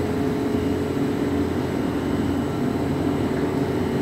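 Steady mechanical drone with a constant hum, unchanging throughout.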